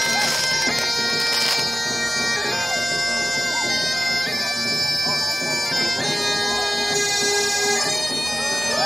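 Bagpipes playing a slow tune over their steady drone, each melody note held about a second. Faint crowd voices are heard under the music.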